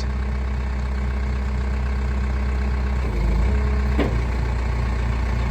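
2006 Case 580 Super M Series 2 backhoe loader's turbo diesel engine running steadily as the machine is operated, with a brief rise in its low hum about three seconds in and a sharp click about four seconds in.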